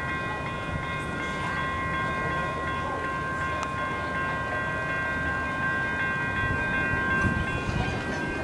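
Electronic railroad-crossing warning bells ringing steadily, with a low rumble growing near the end as a train approaches.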